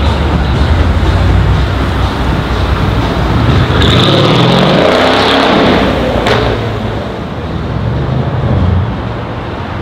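Tuned Mercedes-Benz CLS63 AMG's twin-turbo V8, fitted with a catless downpipe and valved Fi exhaust, running low and then accelerating hard, its pitch rising about four seconds in. A sharp crack from the exhaust comes near the six-second mark, and then the note eases off as the car drives away.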